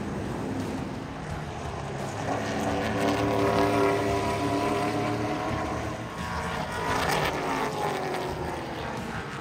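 Race car engines running on a short oval track, with a car passing and its engine pitch sweeping about seven seconds in.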